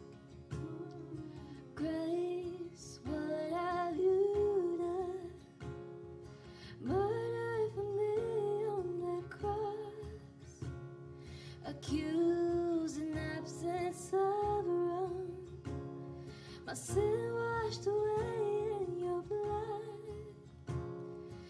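Live worship music: an acoustic guitar accompanies a woman singing a slow melody in phrases a few seconds long, with short pauses between them.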